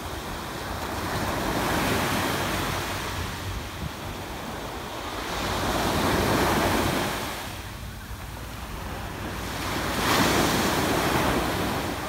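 Small waves breaking on a sandy beach and washing up the shore, the surf swelling and easing three times, about every four seconds. A low rumble of wind on the microphone runs underneath.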